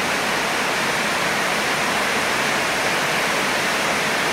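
Steady rainfall, an even hiss that does not change.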